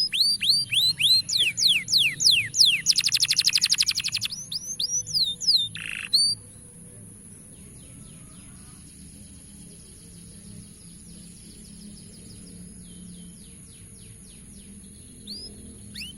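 Canary singing: a run of quick falling whistled notes with a rapid trill about three seconds in. About six seconds in the loud song stops, leaving only faint, distant notes over a steady high hiss.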